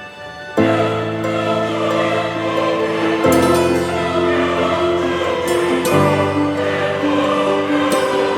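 Background music with a choir singing sustained chords, which change about every three seconds.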